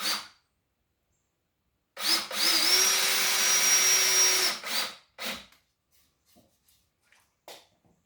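Drill driver driving a screw into a 2x4 frame: a brief spin right at the start, then one run of nearly three seconds from about two seconds in, its whine rising briefly and then holding steady before it stops. A few light knocks follow.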